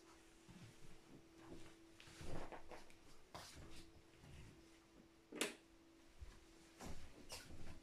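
Handling noise of a phone being carried through a room: a few soft knocks and rustles, one sharper knock about five seconds in, over a faint steady hum.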